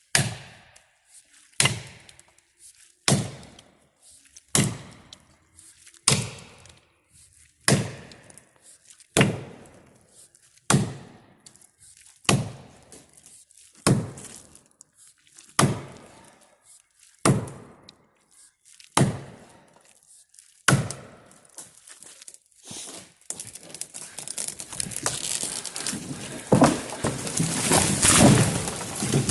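A felling axe striking dead ash wood in steady, even chops, fourteen blows about one and a half seconds apart. Then the trunk gives way: a long, building crackle of splitting wood and a crash as the tree comes down near the end.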